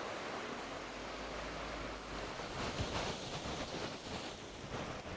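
Steady rushing noise of floodwater and wind, with wind buffeting the microphone and growing rougher about halfway through.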